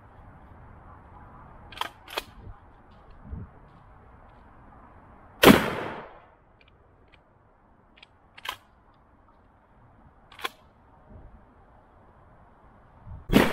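Two shots from a 12 gauge Stevens pump-action shotgun firing armor-piercing incendiary shells, about eight seconds apart: the first about halfway in, the second near the end, each with a short echo. Shorter, sharp clicks of the pump action being worked come before and between the shots.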